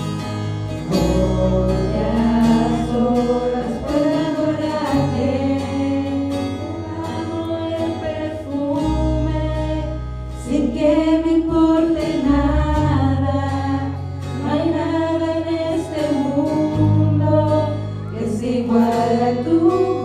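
Worship band music with voices singing a melody over held bass notes.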